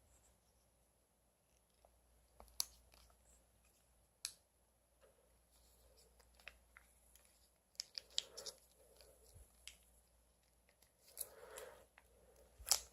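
Faint handling of packaging: scattered sharp clicks, taps and light scratches of cardboard and plastic being opened and moved about, a few of them louder, spread irregularly.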